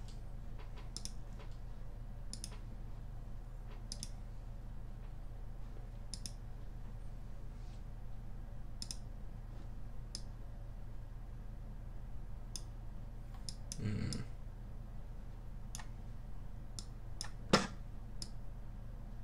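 Computer mouse buttons clicking now and then, roughly once a second, over a steady low hum, with one much louder click near the end.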